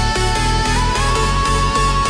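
Electronic dance music, instrumental: a held synth lead note that slides up a step about a second in, over a steady pulsing bass beat.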